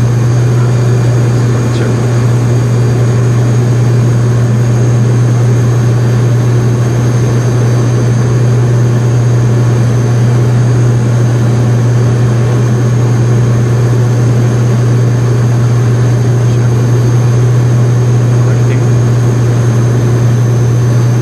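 Fokker 50's two Pratt & Whitney PW127 turboprops and their six-bladed propellers droning steadily on final approach, heard from inside the cockpit. There is a strong low propeller hum under a faint high whine.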